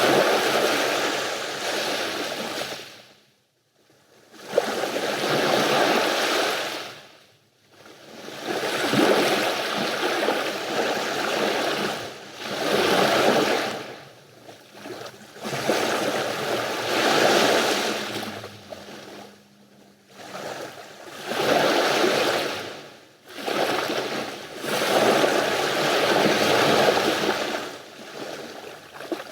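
Sea waves breaking and washing up the beach, a new rush of surf swelling and fading every three to four seconds.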